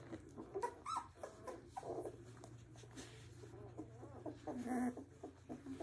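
Young Labrador retriever puppies, 17 days old, making a few short, faint whimpers and grunts, one a quick rising squeak about a second in and a lower call near the end.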